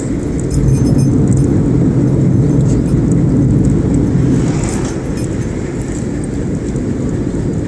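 Road and engine noise inside a moving car's cabin, picked up by a smartphone: a steady low drone, louder for the first four seconds or so. About four and a half seconds in there is a brief whoosh as an oncoming box truck passes close by.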